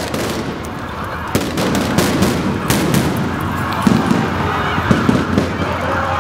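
Riot clash in the street: a rapid, irregular series of sharp bangs and pops, stun-grenade and firecracker-like, over a dense background of crowd and street noise.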